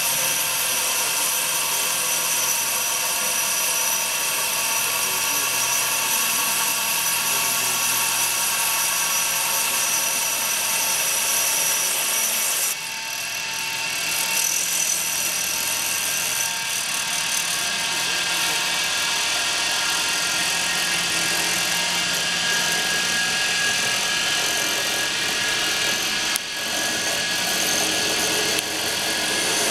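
CNC wire-cutting machine for foam and mineral-wool slabs running: the motor-driven wire loop runs over its pulleys as it cuts through a white slab, a steady whine with a high hiss. The hiss dips for a moment about halfway through.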